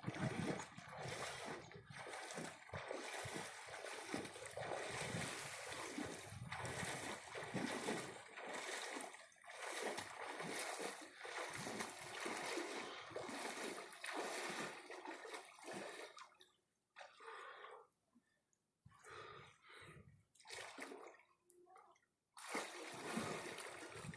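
Sea water splashing and sloshing in irregular bursts, broken by several short silent dropouts in the second half.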